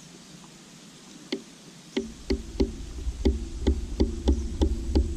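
Riflescope turret being turned by hand: a run of about a dozen short clicks, roughly three a second, with a low rumble of the rifle being handled from about two seconds in. The clicks are a windage adjustment moving the point of impact to the left while sighting in.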